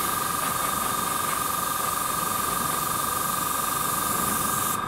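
Airbrush spraying paint, a steady hiss of air and atomised paint that cuts off just before the end. A steady high whine runs underneath throughout.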